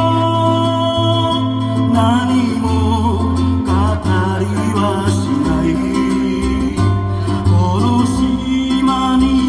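Live ukulele music with a singing voice over a low, sustained bass line, played through a PA system.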